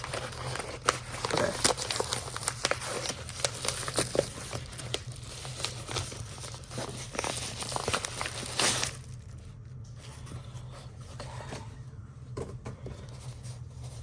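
Parcel packaging being crinkled and torn open, a dense run of crackles and rustles that stops about nine seconds in.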